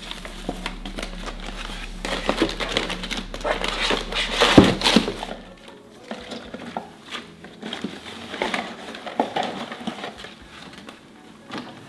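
Plastic zipper bags crinkling and kitchen items knocking lightly as they are moved around in a drawer. The loudest sharp knock comes about four and a half seconds in.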